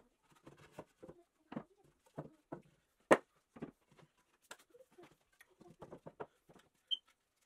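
Irregular light knocks and taps, with one sharper knock about three seconds in.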